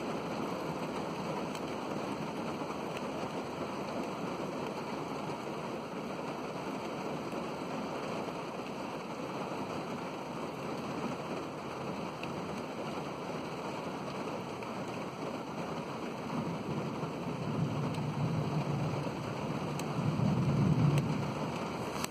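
Steady rain falling, with a low rumble of thunder building over the last several seconds and peaking shortly before the end.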